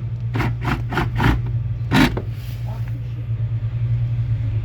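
Steady low engine rumble, like a vehicle idling, with about five sharp clicks and knocks of metal parts being handled in the first two seconds.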